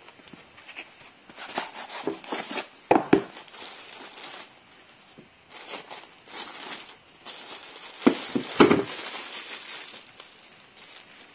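Clear plastic wrapping and cardboard packaging crinkling and rustling as a digital kitchen scale is unpacked by hand, with two short clusters of louder knocks, a few seconds in and again about two-thirds of the way through.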